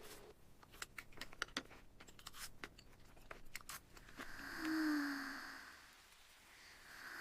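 Crunchy food being chewed: a quick, irregular run of crisp crunches and clicks for about four seconds, then a short hummed sound that dips in pitch.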